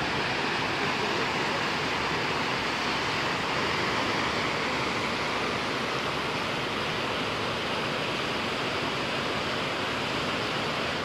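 Reservoir water rushing through a wide open sluice gate into a canal with great force: a steady, unbroken rushing noise.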